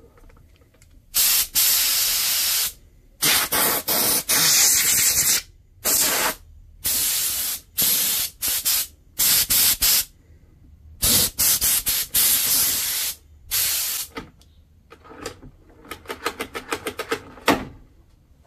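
Compressed air blasting from a pistol-grip air blow gun, trigger pressed and released in a series of loud hissing bursts of a second or two each, then a rapid run of short puffs near the end.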